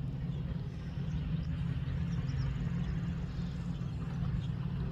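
Vehicle engine running steadily at idle, a continuous low hum.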